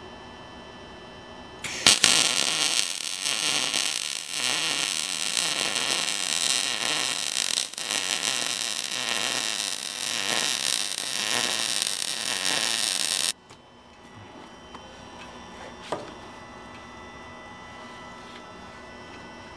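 MIG welder laying a bead along a steel seam: the arc sizzles and crackles steadily for about eleven seconds, starting about two seconds in and cutting off sharply. A steady machine hum runs underneath.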